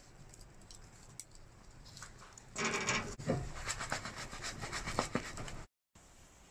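A cast iron pan and a charred log being moved about on a wood stove's cast iron top: a loud scrape about two and a half seconds in, then a string of knocks and clicks.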